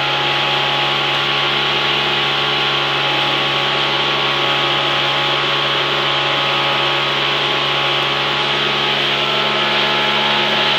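Homemade turbojet engine built from an HT18 turbocharger running at a steady speed: a loud, even rushing roar with steady humming tones underneath and no rise or fall in pitch.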